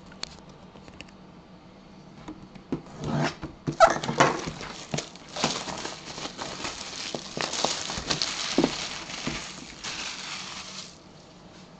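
A cardboard box being handled: lifted, tilted and moved about on a table. It gives a few sharp knocks about three to four seconds in, then several seconds of rustling and scraping, which stop about a second before the end.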